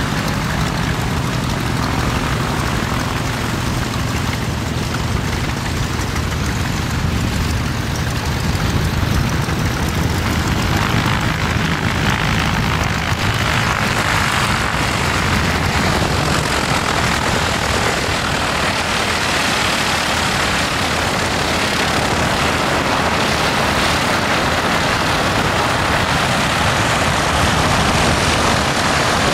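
Piston engines and propellers of vintage biplanes taxiing past, a steady low engine drone. The drone fades about halfway through while a broad rushing noise grows stronger.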